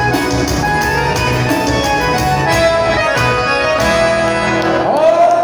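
Band music with accordion over a steady low beat; near the end a note bends up and is held.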